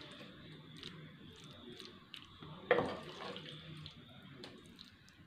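Faint wet scraping and small ticks of a wooden spatula working thick mango pickle out of a nonstick pan into a ceramic bowl, with one louder knock a little under three seconds in.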